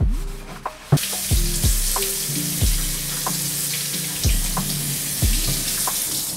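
Kitchen faucet running water over a wooden cutting board as it is rinsed in the sink. The water comes on about a second in, runs steadily, and shuts off near the end.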